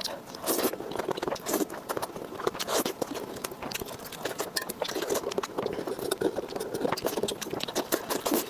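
Close-miked chewing and crunching: dense, irregular crisp crackles and wet mouth sounds as food is bitten and chewed.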